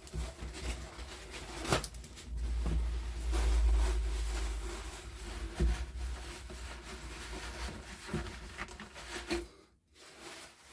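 Workbench handling noises: rubbing, with a few sharp knocks and clicks and a low rumble a few seconds in.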